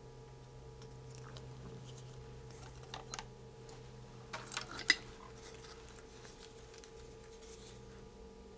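Small clicks and taps of electronic components and tools being handled on a kit circuit board, with a few clicks around three seconds in and a short cluster near five seconds, the last of them the loudest. A steady low electrical hum runs underneath.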